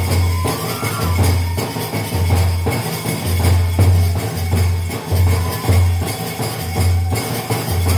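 Music with a steady beat: repeated low bass notes and jingling, tambourine-like percussion, with regular sharp strokes.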